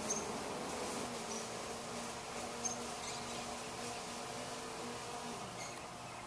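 Faint steady low buzzing hum over hiss, with a few tiny ticks: background room tone.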